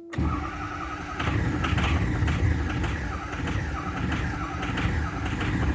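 Starter cranking the Ford 6.0 L Power Stroke V8 diesel in a steady, rhythmic churn that goes on for several seconds, a long crank typical of the hard starting this engine is suffering from.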